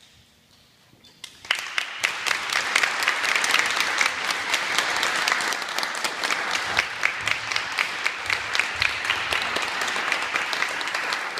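Audience applauding with many hand claps, starting suddenly about a second and a half in and running steadily on.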